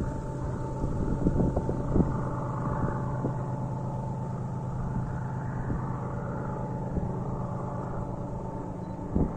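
Train passing, its wheels clacking over the rail joints in scattered knocks over a steady hum, with a cluster of heavier clacks near the end.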